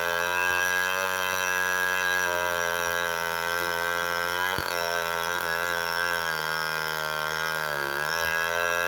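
Chainsaw engine running steadily at idle with an even drone, dipping slightly near the end, with one sharp click about four and a half seconds in.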